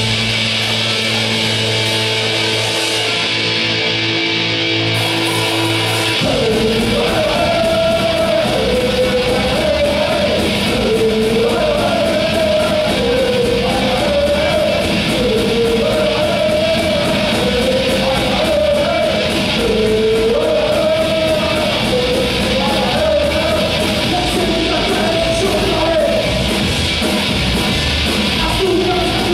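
Live punk rock band: held electric guitar and bass chords ring for about six seconds, then the drums and full band come in under a shouted, sung lead vocal.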